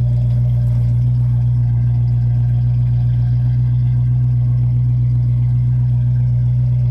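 A 1968 Ford Mustang California Special's 302 V8 with a four-barrel carburettor idling steadily through Flowmaster mufflers, heard at the tailpipes.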